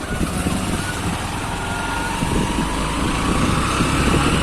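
Honda SP 125's single-cylinder engine pulling away and accelerating, its pitch rising slowly and the sound growing a little louder.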